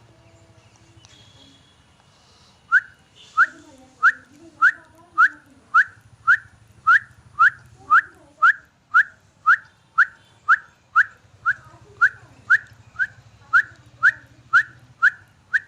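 A man whistling an imitation of a jungle bird's song: a long, even series of short, sharp notes, about two a second, starting a few seconds in.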